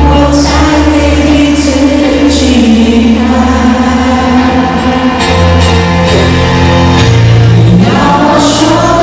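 Live concert music: a male singer performing a slow Mandarin ballad with piano accompaniment, amplified through a large venue's sound system.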